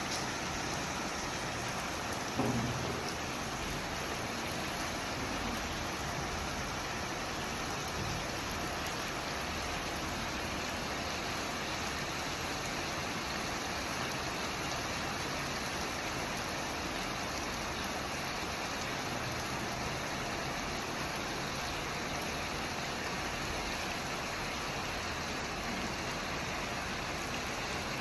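Heavy rain falling steadily, a dense even hiss of rain on surfaces. A brief low thump about two and a half seconds in.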